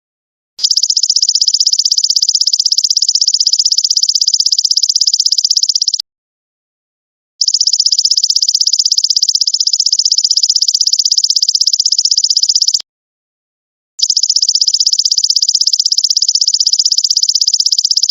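Golden locust (belalang emas) insect call: long, high-pitched trills of very rapid pulses, each lasting about five seconds, three in a row with short pauses between them.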